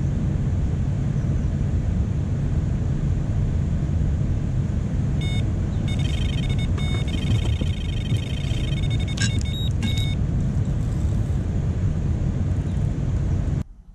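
Electronic carp bite alarm going off in a run, a few single beeps and then a rapid, continuous string of high electronic beeps for several seconds as a carp takes line, before it stops about ten seconds in. Under it, a steady low rushing noise from the fast-flowing river.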